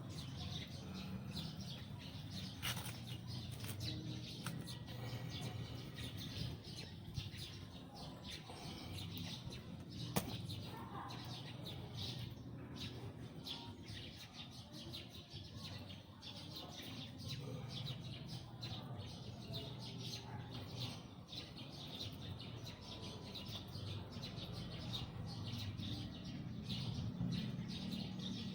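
Birds chirping throughout, many short high notes, with a couple of sharp clicks.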